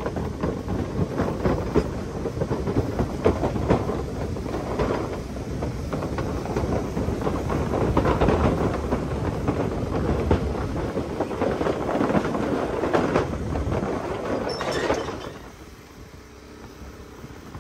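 Wooden bridge planks clattering and knocking under a KTM 390 Adventure motorcycle as it rides across, a dense run of rattles and clicks. The clatter drops away about fifteen seconds in.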